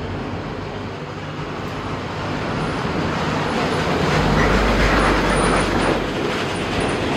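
Road traffic: a motor vehicle passing along the street, a steady rumbling noise that swells to its loudest about four to five seconds in and then eases.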